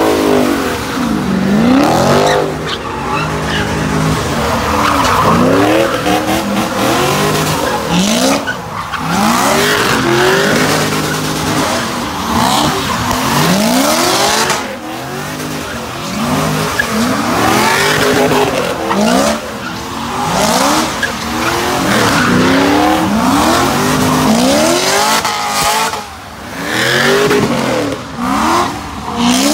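Car doing donuts: its engine is revved up and down over and over, about once every second and a half, while the tires screech without a break.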